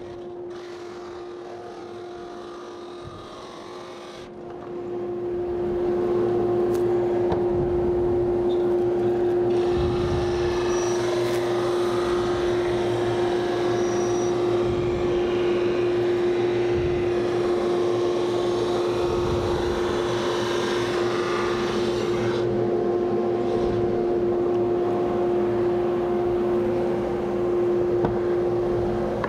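Conveyor-fed thickness sander running with a steady motor hum that grows louder about four seconds in. A wooden door panel then feeds through under the sanding head, adding a hiss for about twelve seconds until it clears.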